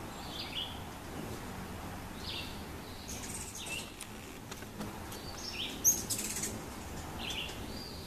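Hummingbirds giving short, high, squeaky chirps in scattered bursts, about five times, the loudest chattering cluster about six seconds in.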